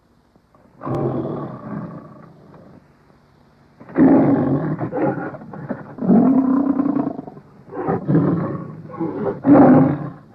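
A series of about five animal roar sound effects: one about a second in that trails off, then four louder roars in quick succession from about four seconds in.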